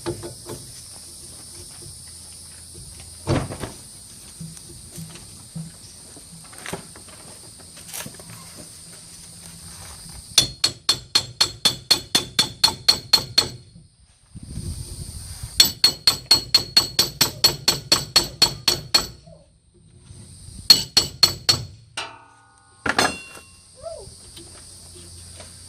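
Hammer driving a pinion yoke onto the splined pinion shaft of a Chevy 12-bolt rear axle: a few single knocks, then three quick runs of sharp ringing metal blows, about five a second.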